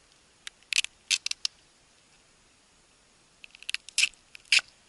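Crinkling and crackling of plastic wrapping and tape on a wrapped package being handled: a quick run of sharp crackles about a second in and another around four seconds in, the loudest near the end.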